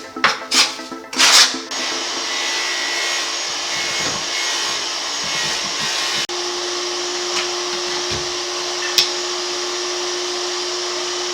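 A few knocks and scrapes, then from about two seconds in a small electric motor runs with a steady whir and a constant hum. It has a brief dropout near the middle and a single sharp click near the end.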